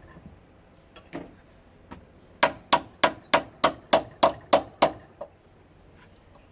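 A rapid run of nine sharp hammer blows, about four a second, during the teardown of a CRT television, with a couple of lighter knocks before it.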